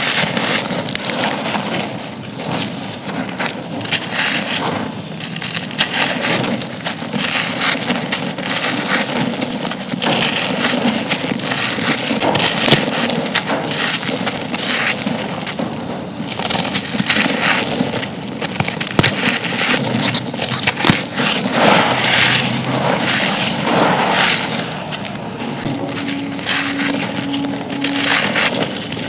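Crumbly black concrete pieces being crushed and broken apart, a dense run of crunching and crackling that eases off briefly a few times.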